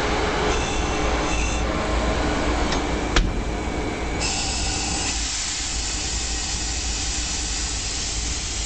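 Diesel locomotive cab noise: a steady rumble of the engine and running gear, with a sharp click about three seconds in. From about four seconds a steady hiss takes over and the low rumble fades.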